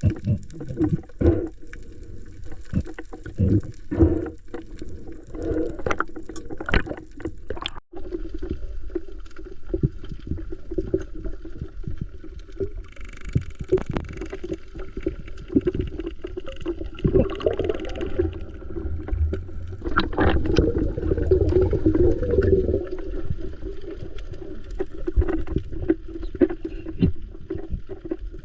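Water sloshing and bubbling around a swimmer in the sea, heard muffled, with many scattered knocks and clicks and a busier stretch about two thirds of the way in.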